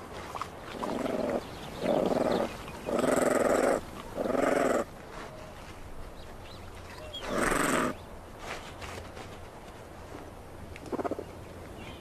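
Honey badgers growling as they tussle over food: four harsh growls in quick succession over the first five seconds, another about seven and a half seconds in, and a short faint one near the end.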